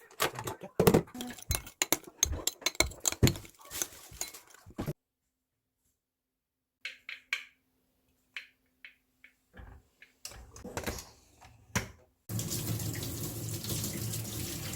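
Kitchen work: a quick run of clicks and clatters for the first few seconds, then after a short silence a few light knocks, and a tap running into a sink for the last few seconds.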